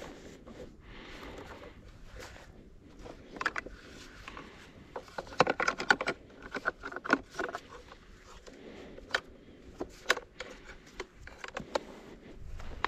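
Irregular clicks, knocks and short rattles of objects being handled, with a dense cluster about five to seven seconds in and a few single clicks after.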